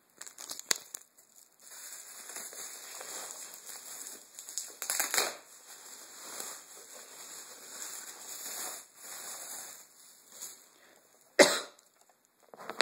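Plastic wrapping crinkling and rustling as it is pulled off a computer power supply, with a louder crackle about five seconds in and a sharp knock near the end.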